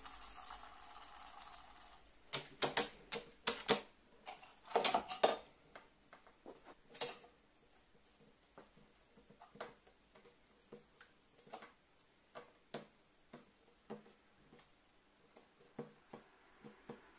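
A carrion crow pecking at a small plastic drink bottle and knocking it about on a metal sheet. It starts with a brief soft hiss, then a run of loud sharp taps and clatters, followed by lighter taps spaced out.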